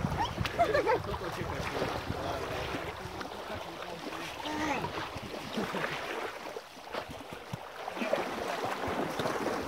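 Splashing and sloshing of water as people wade and huskies swim in the shallows, with a few short voice calls.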